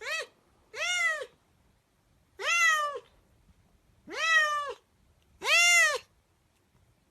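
A cat meowing five times in a row, each meow a short call that rises and falls in pitch, about a second or so apart.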